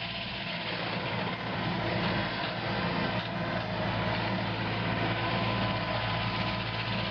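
Hitachi 130 tracked excavator's diesel engine running steadily, with a broad hiss over the engine note.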